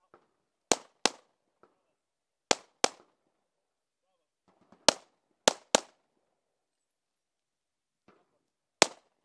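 Handgun fired eight times: mostly quick pairs of sharp shots about a third of a second apart, with gaps of one to three seconds between pairs, and a single last shot near the end.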